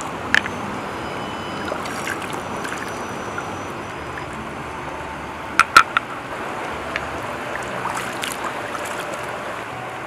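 River water running steadily, with sharp clicks of stone against stone as rocks are set on top of one another in a balanced stack: one click about a third of a second in and a quick cluster of three near the middle.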